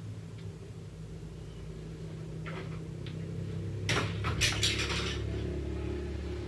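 Steady low hum in a quiet room, with a few faint clicks and then a short cluster of sharp clicks and rustles about four seconds in.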